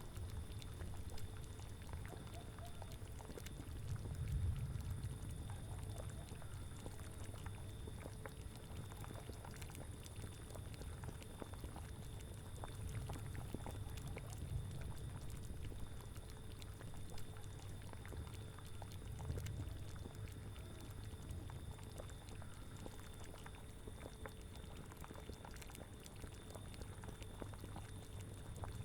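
A cauldron bubbling at a steady boil, with many small pops, over a low rumble of wind that swells now and then.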